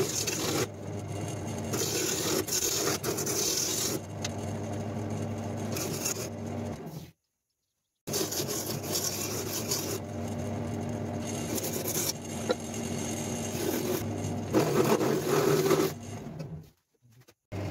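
Wood lathe motor running with a steady hum while a turning tool scrapes and cuts the spinning wood, the cutting noise swelling and fading. The sound drops out completely twice, about seven seconds in and near the end.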